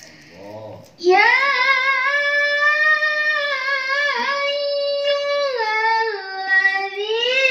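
A girl reciting the Qur'an in the melodic tilawah style into a microphone, starting about a second in with long, high held notes that slide and turn between pitches.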